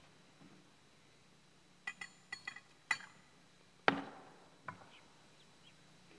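Altar vessels clinking and being set down on the altar during the preparation of the chalice: a quick run of light ringing clinks about two to three seconds in, then one sharper knock about four seconds in and a softer one shortly after.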